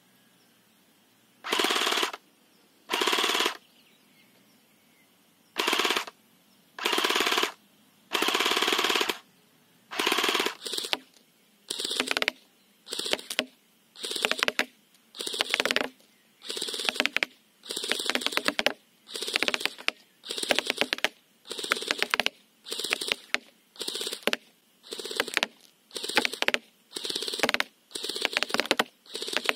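3D-printed airsoft electric gun (AEG) submachine gun firing full-auto in short bursts, each a fast rattle of shots lasting under a second. The bursts come about one a second from about ten seconds in.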